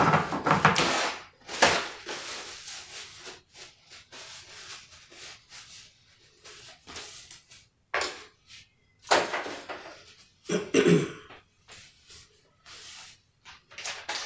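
Paper towel torn from a roll and rustled while wet hands are dried. The rustling is loudest in the first two seconds, followed by scattered softer rustles and handling noises, with a few louder bursts later on.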